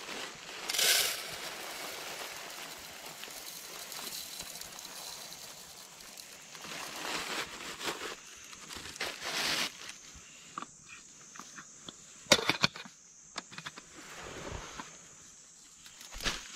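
Rustling and crackling handling noises with scattered sharp clicks and knocks, a cluster of them about twelve seconds in, over a steady hiss.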